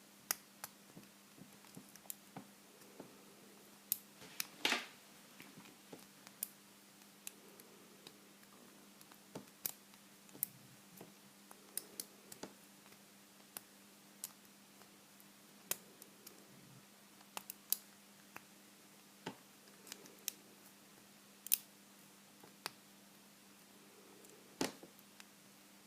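Lock pick and tension wrench working inside a vintage Corbin pin tumbler padlock: small sharp metallic clicks and ticks at irregular intervals as the pick works the pins.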